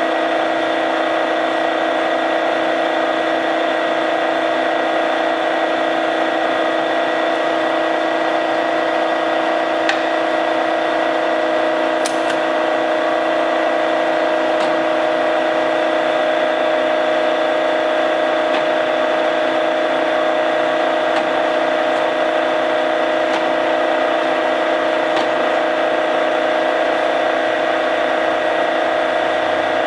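A 1970 Warner & Swasey No. 3 ram-type turret lathe running under power: a steady whine holding several fixed pitches, with a couple of faint clicks about ten and twelve seconds in.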